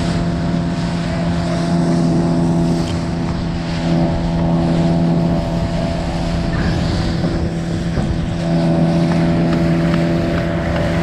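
Outboard motor on a small skiff running at a steady speed, an even drone with no change in pitch.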